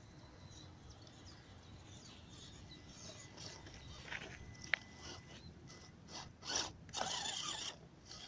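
Small electric RC rock crawler's motor and gearbox whirring with a ratcheting sound as it crawls over dry grass and twigs. Crackling and a sharp click come from the sticks under its tyres, louder near the end.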